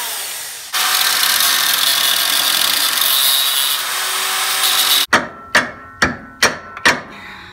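Angle grinder cutting into a stuck steel suspension part, running in two passes and cutting off abruptly about five seconds in. Then come about five quick hammer blows on metal, each one ringing.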